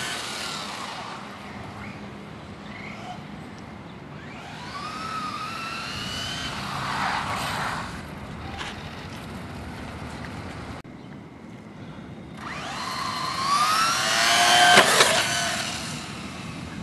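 Electric motor and drivetrain of a Traxxas Slash 4x4 radio-controlled short-course truck whining as it speeds up: the pitch rises twice, the second time louder. The loudest moment, with a sharp knock, comes near the end.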